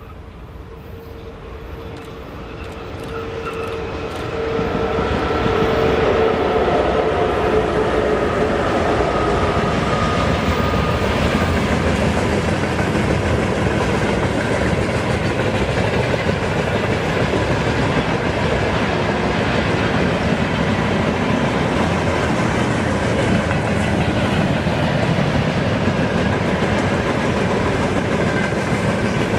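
A VL10U electric locomotive hauling a freight train comes up and passes. Its whine grows louder and dips slightly in pitch over the first few seconds. Then the wagons keep up a loud, steady rumble and clatter on the rails.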